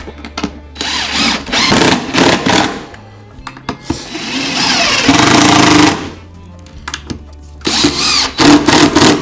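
Cordless DeWalt driver driving wood screws into a plywood box side, in three runs: one lasting about two and a half seconds, a second of about two seconds in the middle, and a shorter one near the end.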